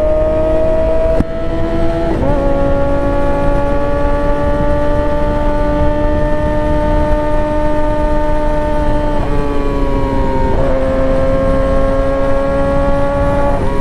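Yamaha R6's inline-four engine pulling at steady revs while riding, heard from the seat over a low wind rush. Its steady whine steps down in pitch a few times, about two seconds in and again near the ten-second mark, and jumps back up at the very end.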